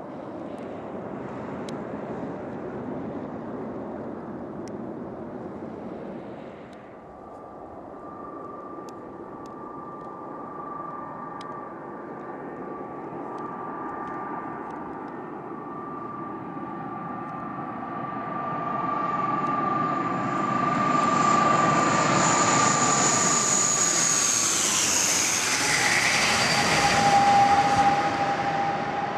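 For the first several seconds, the jet engines of an Embraer 190 airliner rolling out on the runway after landing, a broad rumble. Then an ATR 72-500 turboprop on landing approach, its steady engine and propeller whine growing louder as it comes in low, with the pitch dropping near the end as it passes overhead.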